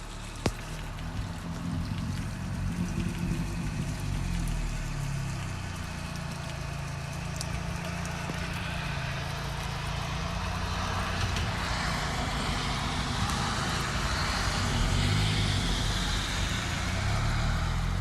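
R53 Mini Cooper S's supercharged 1.6-litre four-cylinder, breathing through an aftermarket header and cat-back exhaust, running at low revs and growing steadily louder. Its pitch begins to climb near the end as the car starts to pull away.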